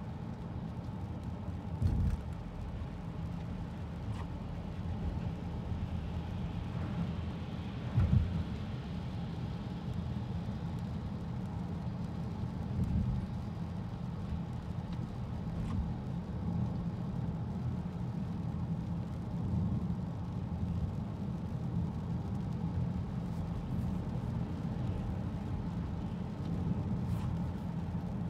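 Road noise inside the cabin of a 2018 Honda Accord Sport 1.5 cruising at about 41 mph on a rain-wet road: a steady low tyre rumble with the hiss of water from the wet surface. Two brief thumps come about two seconds in and again about eight seconds in, the second the loudest.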